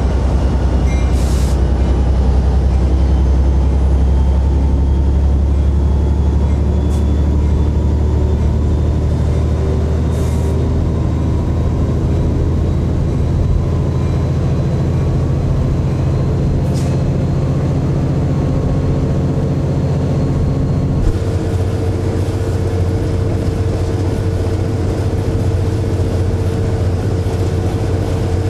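EMD F59PH diesel locomotive's 12-cylinder 710 engine running steadily, a deep loud drone, with the rumble of the train rolling on the rails, heard from the cab. About twenty seconds in the sound changes abruptly and a steady hum joins it.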